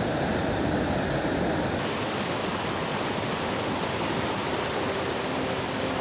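Fast water pouring over a river weir: a steady, even rush of noise.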